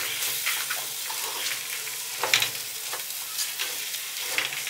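Wooden spatula stirring and scraping crab pieces through a masala frying in a black pot, over a steady sizzle, with several short scrapes of the spatula along the pot.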